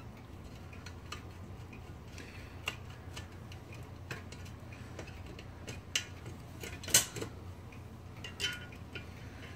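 Scattered light metallic clicks and clinks of typewriter parts and tools being handled during disassembly, the loudest about seven seconds in, over a steady low hum.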